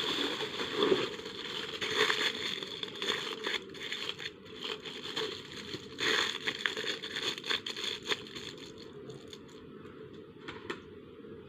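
Aluminium foil crinkling and crackling as it is handled and folded, in irregular sharp crackles that thin out over the last few seconds.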